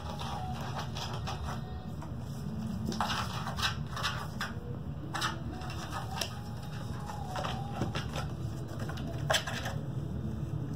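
Kittens playing with toys on a fabric play mat: scattered light rustles and clicks, the sharpest about nine seconds in, over a steady low hum.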